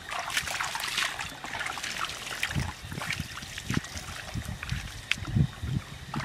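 Splashing and trickling of shallow muddy water as a person wades through it, with low sloshing thuds of footsteps in the mud from about halfway through.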